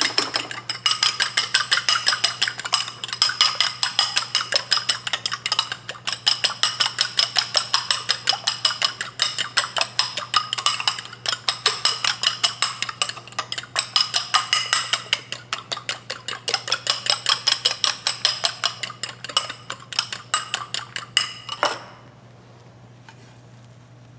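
Metal fork beating two eggs in a ceramic bowl: rapid clinking of fork against bowl, about five strokes a second, with the bowl ringing, stopping abruptly near the end.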